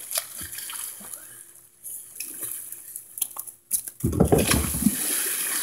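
Faint lapping water and small knocks, then about four seconds in a loud splash as a person dives head-first into a swimming pool, followed by the rush and churn of disturbed water.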